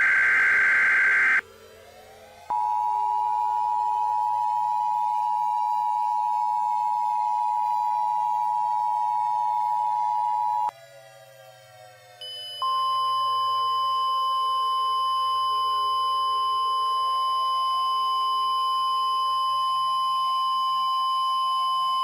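Emergency Alert System tones: a harsh, buzzing data burst ends about a second in. Then a steady alert tone holds for about eight seconds, and after a short break a second, slightly higher steady alert tone holds for about ten seconds. Underneath runs an endlessly falling synthesized drone.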